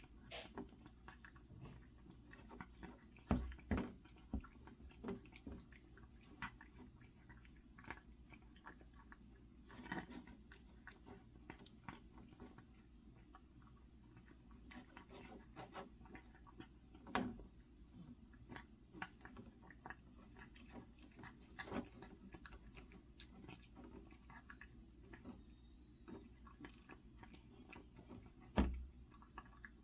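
A cat eating after tooth extraction surgery for stomatitis, heard as faint, irregular chewing and mouth clicks. A few louder knocks stand out, one about three seconds in, one midway and one near the end.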